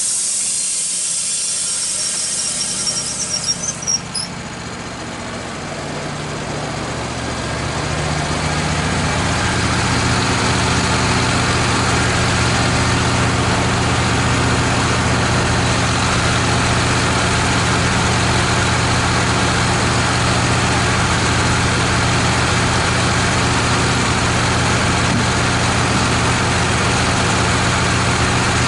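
A high hiss fades over the first few seconds and ends in a brief squeal about four seconds in; then an engine comes up over several seconds and runs steadily.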